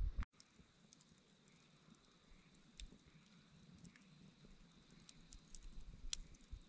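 Campfire burned down to glowing embers in a metal fire ring, crackling faintly with scattered small pops and ticks. A short low thump comes right at the start, then the sound cuts out for a moment.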